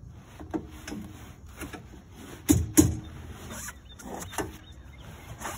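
Camouflage blind fabric rustling and scraping as it is pulled and worked into the blind's rail, with a scatter of knocks and clunks from the frame. The loudest are two sharp knocks close together about halfway through.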